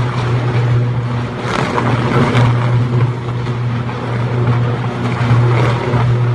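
Burning electrical substation: a loud, steady low buzz from arcing high-voltage equipment, faltering briefly a few times, over a broad rushing noise of the fire.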